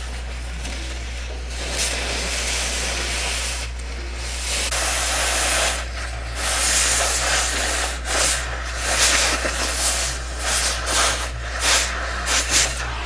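Cutting torch hissing as it melts through the rusted sheet steel of a Beetle heater channel. About halfway through, the hiss turns louder and uneven, surging in quick spurts.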